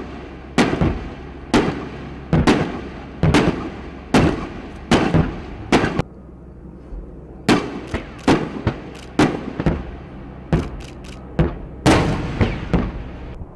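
30 mm cannon rounds bursting on target tanks: a long, irregular string of sharp bangs, each with an echoing tail. They break off briefly about six seconds in, then resume and come in a quicker cluster near eleven seconds.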